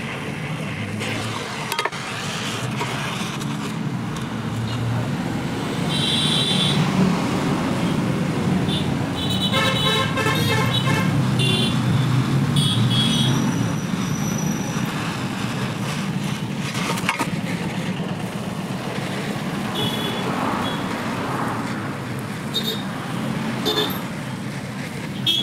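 Road traffic with vehicle horns honking several times, the longest burst about ten seconds in, over the steady hiss of a lit gas welding torch working on a generator silencer.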